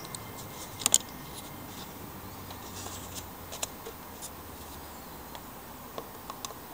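A few short clicks and taps of a screwdriver against the metal hose clamp on the air intake boot, the loudest a pair about a second in, over a faint steady hiss.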